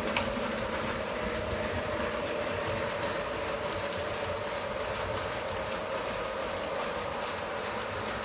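Lionel O-gauge model train running on three-rail track: a steady electric motor whine over the rumble of the wheels, with light clicks from the rail joints and one sharper click just after the start.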